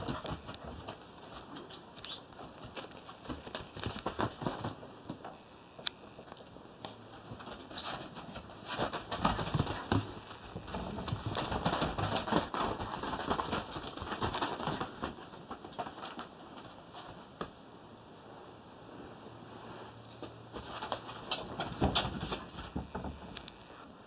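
Golden retriever puppies scampering and wrestling, their paws and claws pattering and scrabbling on a floor mat in quick irregular clicks and scuffs. The scuffling gets busier in the middle and again shortly before the end.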